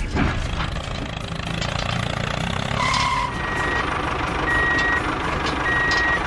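Steady low vehicle-engine rumble with a reversing alarm that starts about three seconds in and beeps about once a second, each beep a high tone lasting about half a second.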